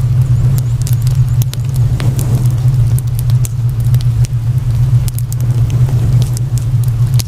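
Wood fire crackling, with many scattered sharp pops and snaps over a steady, loud low hum.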